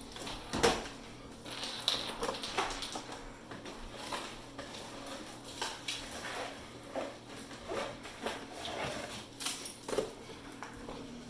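Irregular light clinks and knocks, scattered through, as built-up ice is cleared out of a Samsung refrigerator's ice maker.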